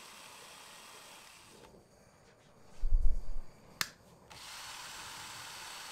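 Blowtorch flame hissing steadily, then stopping for about two seconds, during which there is a dull thump and a sharp click, before the hiss comes back a little louder.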